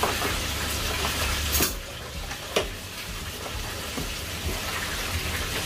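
Deep-fryer oil sizzling steadily, with a few sharp clicks and knocks from metal tongs and plastic takeaway boxes being handled.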